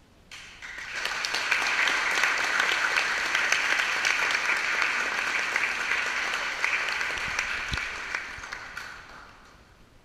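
Audience applauding: the clapping builds quickly about half a second in, holds steady, and dies away shortly before the end.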